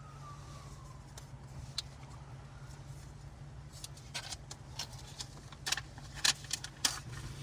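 Scattered clicks and light taps of an iPad and its packaging being handled, thickening and growing louder in the second half, over a steady low hum. A faint falling tone sounds in the first second.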